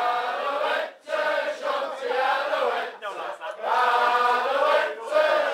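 A group of men singing a song together, led by one voice out front. The singing breaks off briefly about a second in, and again around three seconds in.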